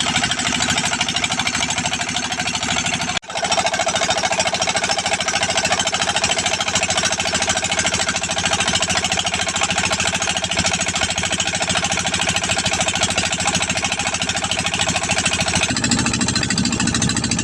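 A small engine running close by with a fast, even rhythm, loud and continuous. It drops out for a split second a little over three seconds in, and its tone shifts near the end.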